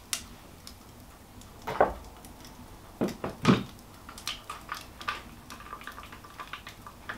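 Knocks and clatter of gear being put down and picked up on a workbench: three or four sharper knocks in the first half, then a scatter of light clicks and ticks.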